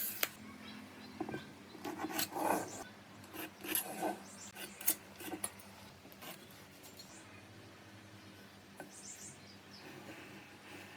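Wood being worked by hand: irregular short scraping and rubbing strokes with a few sharp clicks, busiest in the first half and then dying down to a faint steady hum.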